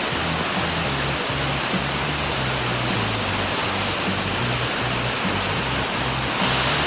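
Heavy rain pouring down, a dense steady hiss that swells louder near the end, over background music with a stepping bass line.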